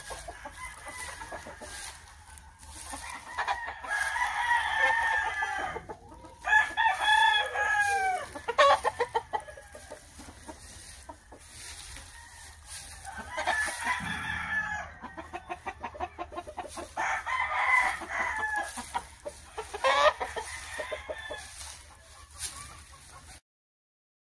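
Several penned gamefowl roosters crowing in turn, about five long crows, with some clucking between them.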